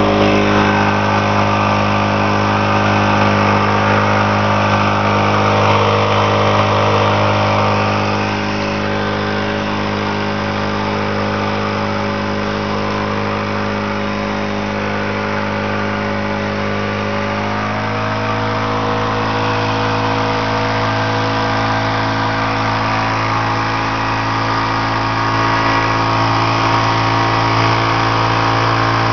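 Old 60 hp Mariner outboard motor running steadily under way, with water rushing off the hull and wake. Its note steps up slightly a little over halfway through.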